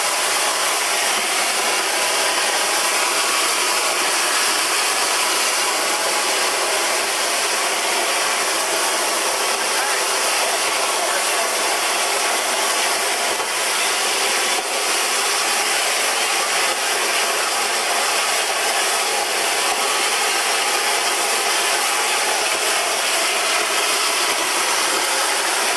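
Gunite nozzle spraying sand and cement mortar on compressed air from a 375 cfm compressor: a steady, loud hiss.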